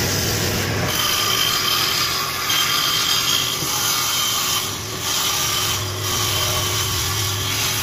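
Table saw running and cutting into a wooden panel fed across the blade by hand, a steady sawing noise with a faint high whine coming and going.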